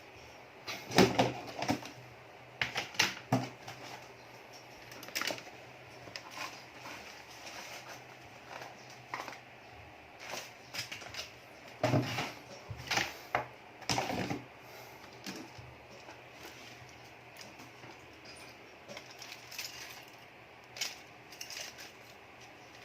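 Irregular clicks and light clatter of small parts being picked up, handled and set down while sorting through spare phone charging ports, loudest about a second in and again around twelve to fourteen seconds in.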